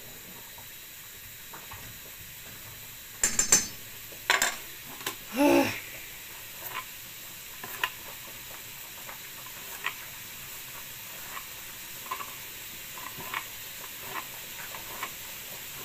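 Diced bacon sizzling steadily in a frying pan. A burst of loud clattering and a scrape about three to six seconds in, then light, regular knife taps on a cutting board as garlic is chopped.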